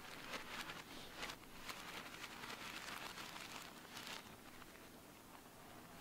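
Plastic packet crinkling and rustling as powder is shaken and poured from it onto a table, with a light patter of falling powder. It is busiest for about the first four seconds, then fades.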